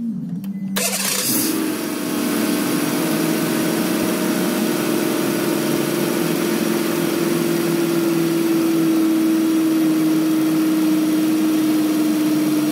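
Car engine idling steadily with its rebuilt distributor freshly reinstalled, the ignition timing not yet set. It comes in suddenly about a second in and holds an even hum.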